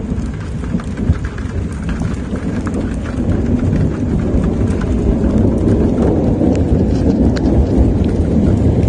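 Thunderstorm: rain falling hard with a low rumble of thunder under it and single raindrops ticking on a hard surface, growing a little heavier after the first couple of seconds.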